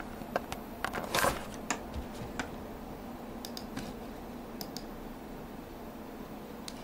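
Scattered clicks and taps on a laptop's keys and touchpad buttons, bunched about a second in and sparser and fainter later, over a steady low hum.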